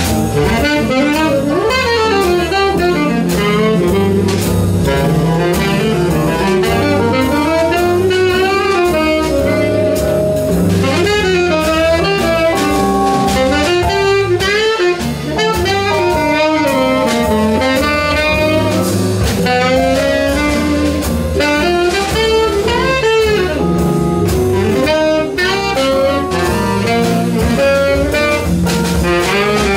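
Live small-band swing jazz: a saxophone plays a solo over piano, guitar, a walking double bass and a drum kit.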